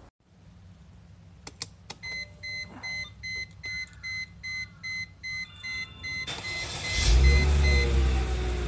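Ignition key clicks, then the dashboard warning chime beeps steadily, about two or three beeps a second, for some four seconds. The starter then cranks, and the Mercedes C240's 2.6-litre V6 catches and runs at a loud fast idle, with a falling whine as it settles.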